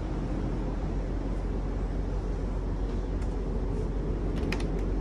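Steady low rumble throughout, with a few light clicks about four and a half seconds in.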